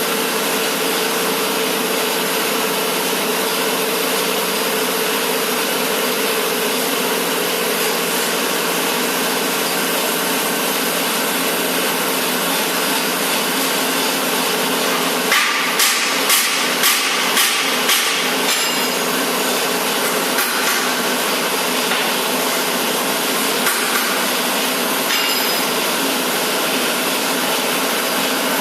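Manual keg washer running with a steady rushing noise from its pump and spray. About halfway through comes a run of about six sharp knocks, roughly two a second, then a few scattered single knocks.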